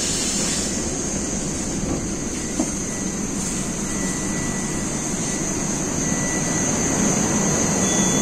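Steady hiss and low hum of an 81-760 metro train standing at a station platform with its doors open, growing slightly louder near the end. A single light knock comes about two and a half seconds in.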